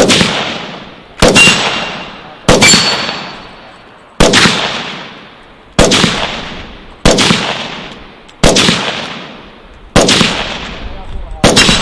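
Nine single gunshots fired one at a time, about one every second and a half, each sharp crack trailing off over about a second.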